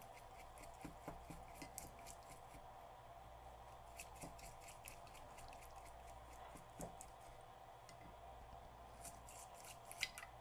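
Faint scratchy scrubbing of a small acid brush's bristles on a gummed-up cassette-deck part in a glass bowl of acetone, coming in several short spells, over a low steady hum.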